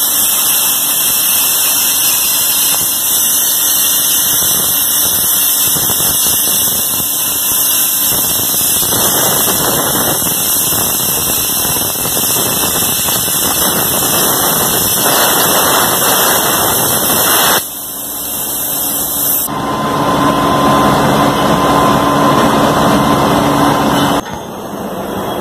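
ESAB Crossbow HD CNC plasma torch cutting steel plate: the loud, steady hiss of the plasma arc. It stops abruptly about two-thirds of the way through. A different loud noise with a steady whine follows and drops away suddenly near the end.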